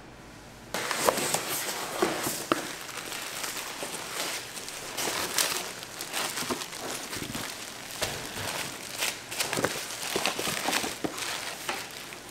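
Irregular crinkling and rustling with scattered sharp clicks and knocks, starting abruptly about a second in.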